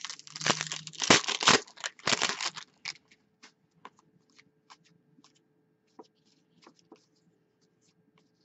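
Foil wrapper of a hockey card pack being torn open, crinkling and tearing loudly for the first two and a half seconds. Then a string of light clicks as the cards are flicked through one at a time.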